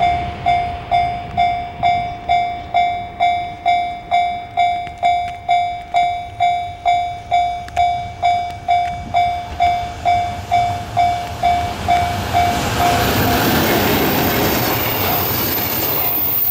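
Japanese level-crossing warning bell ringing, about two dings a second; it stops about thirteen seconds in as an EF210-hauled container freight train swells into a loud rumble and rush of wagons and wheels passing close by.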